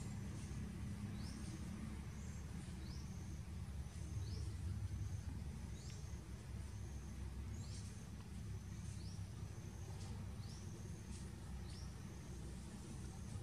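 A bird calling over and over: short, high, rising chirps about once a second, over a steady low rumble of outdoor background noise.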